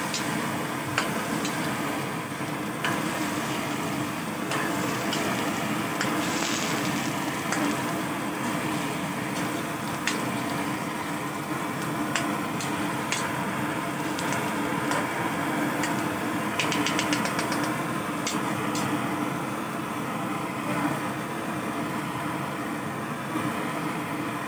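Chicken pieces frying in oil in a metal wok, with a metal spatula scraping and clinking against the pan as they are stirred and turned, over a steady low hum. A quick run of clicks comes about two-thirds of the way through.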